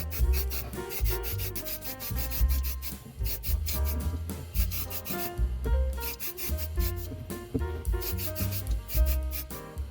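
Sandpaper rubbing on a scale model car part in quick repeated strokes, over background music with a bass beat and melodic notes.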